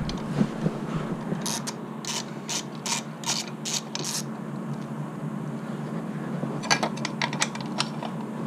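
Socket ratchet clicking in short runs as the stock skid plate's 10 mm bolts are worked loose: a string of separate clicks from about a second and a half to four seconds in, then a faster run of clicks near seven seconds.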